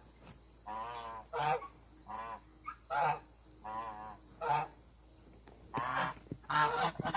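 An animal calling repeatedly, about one call every 0.7 s, alternating a longer wavering call with a shorter one, with a steady high hiss behind.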